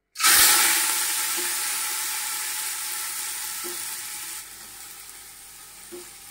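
Soaked, drained Gobindobhog rice dropped into hot oil in an aluminium pot, setting off a loud sizzle that starts suddenly and fades gradually, dropping lower about four and a half seconds in as the rice settles into the oil.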